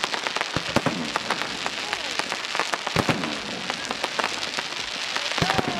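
Fireworks crackling: a dense, rain-like patter of small pops from glittering crackle stars, with a few louder bangs, once or twice in the first second, about three seconds in and near the end.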